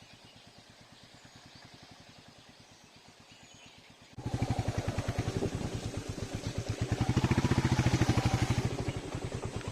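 Royal Enfield Meteor 350's single-cylinder engine thumping steadily under way, faint at first and then suddenly much louder about four seconds in. It picks up briefly and then eases off near the end.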